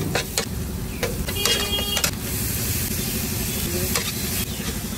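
Onions and spices sizzling on a large flat griddle, with a few sharp clacks of a metal spatula against the griddle, over a steady low rumble.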